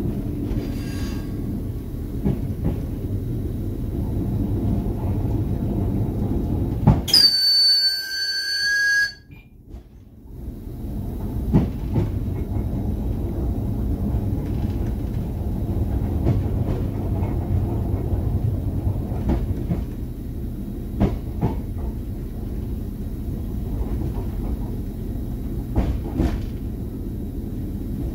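Steady low rumble of an RA2 diesel railcar running slowly through a station, heard from the driver's cab. About seven seconds in, a loud high-pitched squeal lasts about two seconds, then the sound drops away for about a second before the rumble returns.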